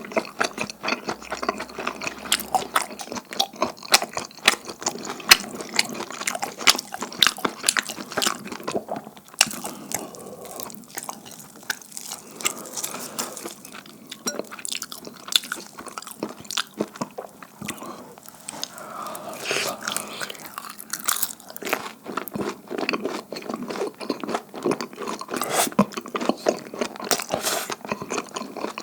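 Close-miked eating: bites into sticky, chewy dumpling hotteok and wet chewing, full of irregular crackly clicks and smacks.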